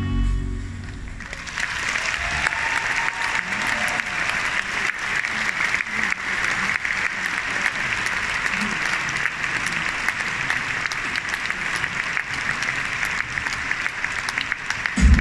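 A large theatre audience applauding, with the clapping swelling in about a second in as the music stops and then holding steady. Loud music with a heavy beat cuts back in at the very end.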